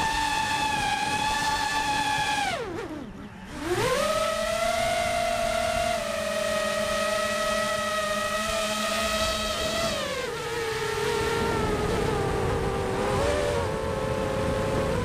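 Drone's electric motors and propellers whining, heard from its onboard camera over rushing air. About three seconds in, the pitch falls steeply almost to nothing and then comes straight back up as the motors slow and speed up again. It holds steady, then steps lower near ten seconds in and wavers slightly.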